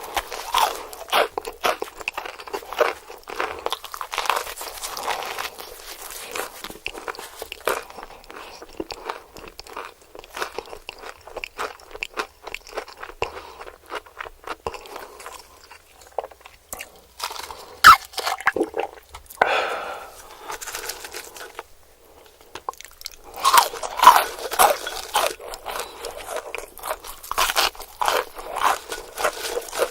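Close, crisp crunching and chewing of breaded KFC fried chicken, bite after bite. The loudest crunches come about eighteen seconds in and again through the last several seconds.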